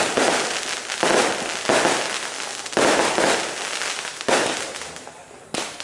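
Fireworks going off: a sudden loud burst roughly every second, each trailing away into crackling. The bursts thin out toward the end before one last pair.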